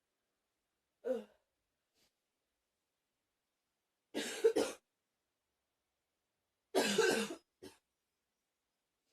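A person coughing in three bouts with silence between: a short, weak cough about a second in, then two louder bursts of two or three harsh hacks each, about four and seven seconds in.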